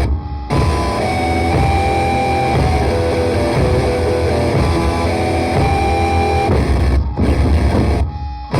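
Old-school grindcore recording: heavily distorted electric guitar, bass and drums playing at full volume, with sustained ringing guitar tones over the wall of noise. The music stops for a split second just at the start and again near the end before slamming back in.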